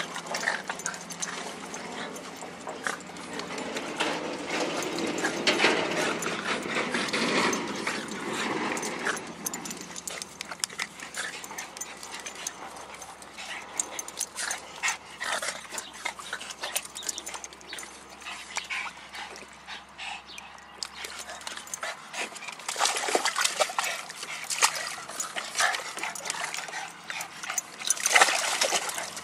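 Dogs splashing and paddling in the water of a plastic kiddie pool, with dog vocal sounds mixed in. The splashing is busiest about four to ten seconds in and again in the last few seconds, when several dogs tumble in the water together.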